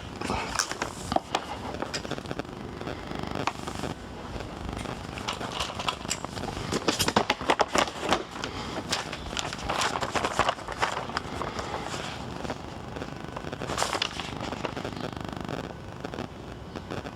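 Shopping cart rattling and clattering as it is pushed along, with irregular knocks and clicks, some of them louder clusters.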